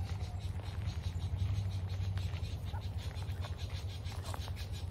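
Outdoor wetland ambience: a steady low rumble underneath, insects chirping and a few faint, short bird calls.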